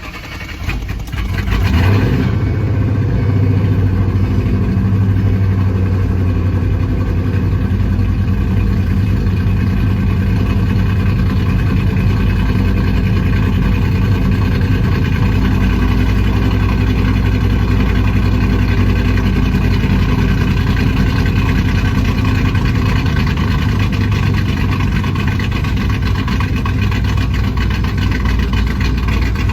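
2008 Ford Mustang GT's 4.6-litre V8 starting up, catching within about two seconds, then idling steadily. It is still chugging with the passenger-side misfire that new fuel injectors did not cure, caused by an air leak at the PCV tube where the cold air intake had cracked.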